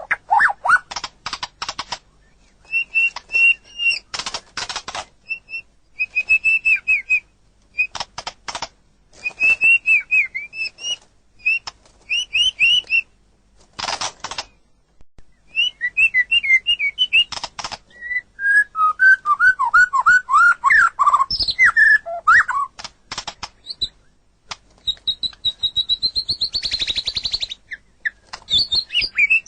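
A murai songbird singing loudly in varied phrases of short whistled notes, mixed with sharp clicking chatter. In the middle comes a run of lower falling notes, and near the end a high rising trill.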